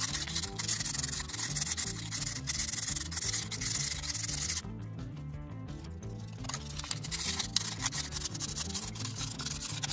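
Fine abrasive cloth being rubbed by hand over the compressor's blue motor housing in quick back-and-forth strokes, with a pause of about two seconds near the middle. Faint background music underneath.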